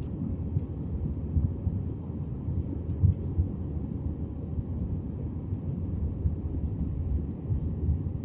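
Steady, low rumble of an Airbus A320-family jet airliner's engines and airflow heard inside the passenger cabin during the climb-out after take-off.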